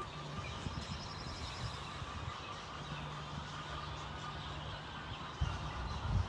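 Farm background sound: a steady low hum, a short rapid high-pitched trill about a second in, and a few low bumps near the end.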